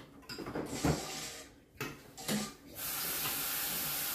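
A few brief clatters, then a kitchen tap starts running about three seconds in, a steady hiss of water into the sink.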